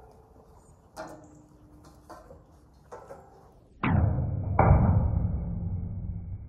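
Steel livestock gate panels being handled and closed: light metal knocks and rattles about once a second, then a loud clang a little before four seconds in and another just after, ringing on and slowly dying away.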